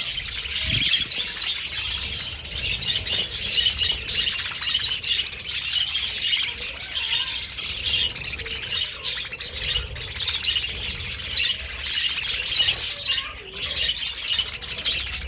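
A flock of budgerigars chattering, with many fast overlapping chirps and warbles and some squawks, without pause.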